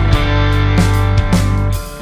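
Instrumental rock background music with guitar, bass and drum hits. Near the end it briefly drops away before picking up again.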